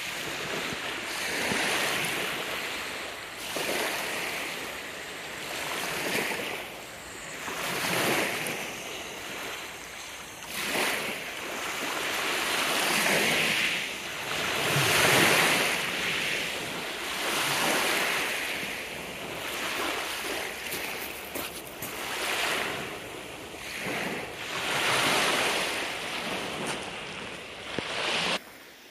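Small Lake Michigan waves breaking and washing up on a pebble shore, one surge of surf about every two and a half seconds. The sound cuts off suddenly near the end.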